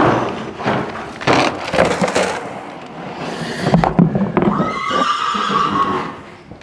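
A horse whinnying: one high, slightly falling call lasting just over a second, about five seconds in. Before it come several short noisy sounds.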